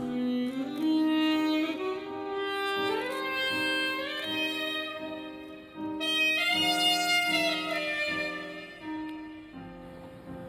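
Instrumental film background score: a slow melody whose notes slide upward from one to the next.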